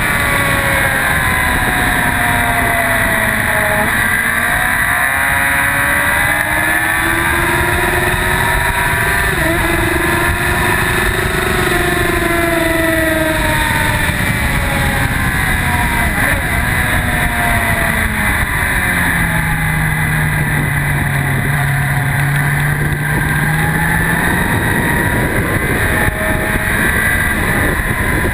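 2004 Yamaha R1's inline-four engine at speed on a race track, its pitch rising and falling as it is ridden through the gears and corners. It drops to a lower, steadier note for a few seconds past the middle. Heavy wind rush on the bike-mounted microphone runs underneath.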